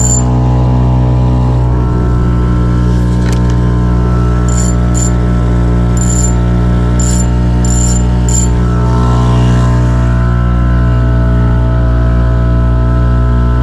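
Small outboard motor running steadily at trolling speed, a constant drone that does not change in pitch. A few short high chirps sound over it about halfway through.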